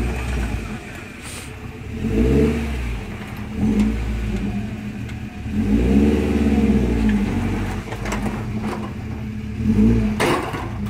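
First-generation Toyota 4Runner's engine revving in repeated short bursts of throttle as the truck crawls over rocks, about four surges rising and falling. A brief sharp noise of contact sounds near the end.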